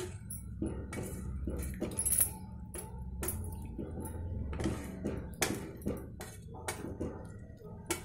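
A spoon stirring chicken curry in watery gravy in a stainless steel pan, scraping and knocking against the pan's sides and bottom in irregular clinks.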